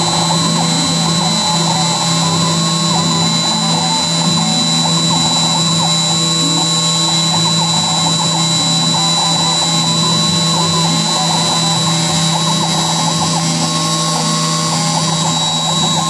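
Large CNC machine running: a steady hum and high whine, with motor tones that keep stepping up and down in pitch as the axes move.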